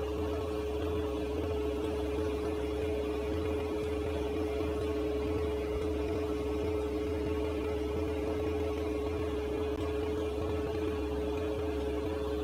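Steady electrical hum with a constant mid-pitched tone and a low drone beneath, unchanging in level.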